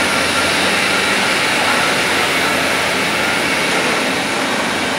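Steady, even noise of machinery running on a gear factory's shop floor.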